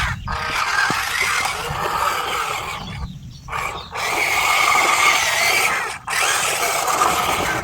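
Electric motor and gearbox whine of a radio-controlled Huina construction model at work, running in spurts: it drops out briefly near the start, stops for about a second around three seconds in, and dips again briefly around six seconds.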